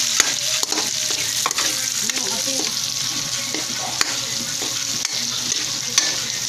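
Onion and garlic sautéing in hot fat in an aluminium wok: a steady sizzle, with a metal spoon stirring and scraping against the pan and a few sharp clicks.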